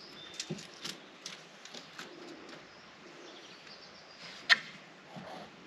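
Scattered light clicks and knocks, with one sharp knock about four and a half seconds in, over a steady background hiss and faint bird chirps.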